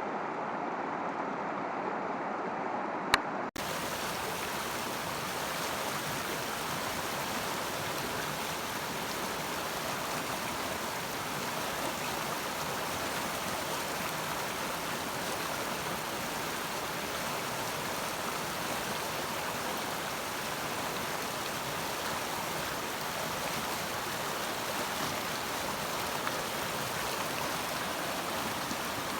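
Mountain stream rushing over rocks, a steady hiss of flowing water. A sharp click about three seconds in, after which the rush turns brighter and fuller.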